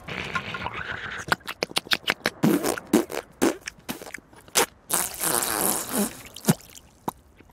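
Cartoon sound effects: a busy, irregular run of clicks and knocks mixed with short squeaky sliding sounds, with a hissing stretch a little past the middle.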